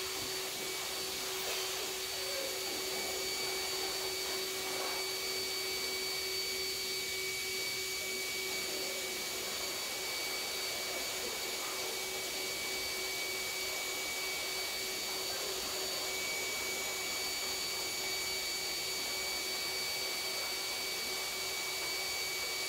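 Steady machine whir of a running electric motor: an even rushing noise with a low hum and several fixed high-pitched whines on top, unchanging throughout.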